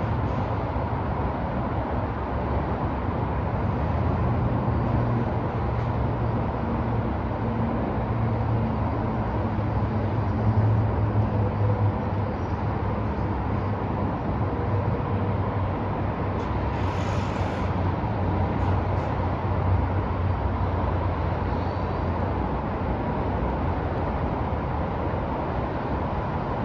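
Downtown street traffic: a steady wash of vehicle noise with a low engine rumble, and a short hiss about seventeen seconds in.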